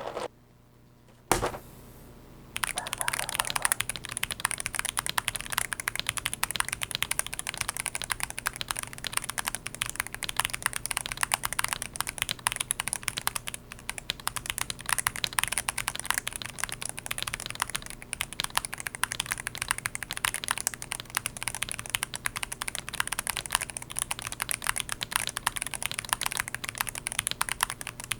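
Mechanical keyboard being typed on. A single key click comes about a second in, then continuous fast typing, a dense stream of key clicks, from about two and a half seconds in.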